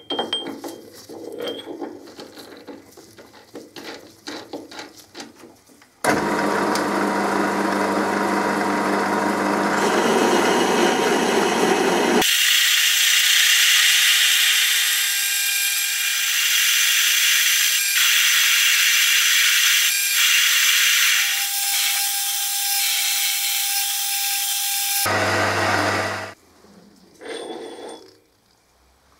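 Metal lathe running and cutting metal. The turning tool takes a facing cut across the end of the spinning workpiece with a loud, steady, hissing, scraping noise. This starts abruptly about six seconds in after a few clicks and knocks of handling the work in the chuck, and stops abruptly near the end.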